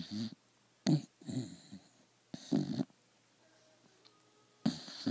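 A sleeping pet snoring quite loud: four rough, buzzing snores in a row, each about half a second long and coming every one and a half to two seconds, with quiet breaths between.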